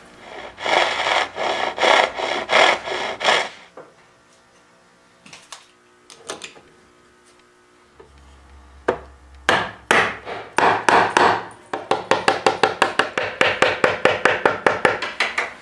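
Hand saw cutting into solid teak: about eight rasping strokes in the first few seconds. A quiet stretch with a few light taps follows. From about nine seconds comes a long run of quick, even cutting strokes into the wood, about four a second near the end.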